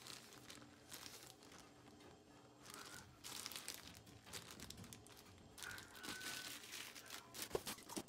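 Faint crinkling and rustling of a thin clear plastic parts bag being handled, louder in two stretches, with a light tap near the end.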